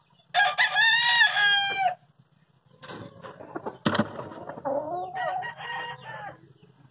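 Gamefowl rooster crowing once, a loud call of about a second and a half that starts about half a second in and falls at the end. In the second half come a sharp knock and quieter, wavering chicken calls.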